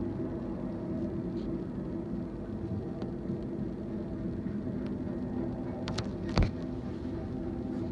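Steady low rumble of a BNSF intermodal freight train, with a few faint clicks and one sharp knock about six and a half seconds in.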